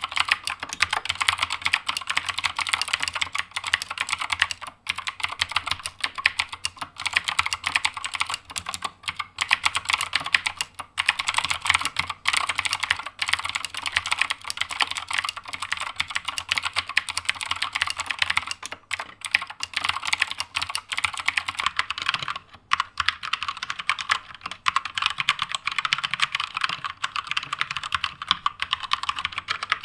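Fast, continuous typing on a Keychron K2 mechanical keyboard fitted with Gateron Blue clicky switches. After a brief break about two-thirds of the way through, the typing goes on with Gateron Brown tactile switches.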